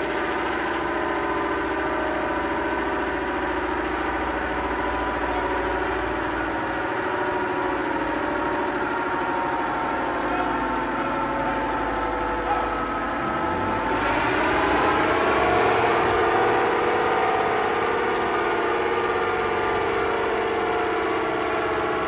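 Pickup truck engine running steadily on a chassis dynamometer. About 14 seconds in, the engine note rises over a couple of seconds, then holds and eases off slightly.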